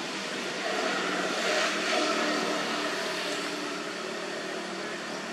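A motor vehicle passing, its engine and road noise rising to a peak a second or two in and then fading, over steady outdoor background noise.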